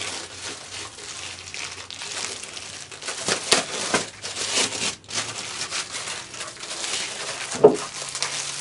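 Foam packing wrap and plastic bag rustling and crinkling as a laptop is handled and unwrapped. There are sharper crackles around the middle and a loud one near the end.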